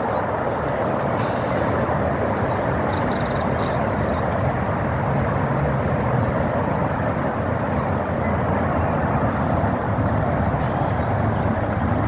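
Steady, even rushing noise with a low rumble underneath, unbroken throughout; a few faint short ticks sound over it about one and three seconds in.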